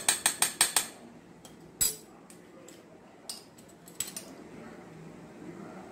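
Metal spoon clinking against a metal pan of milk while stirring: a quick run of about seven clinks in the first second, then a few single clinks.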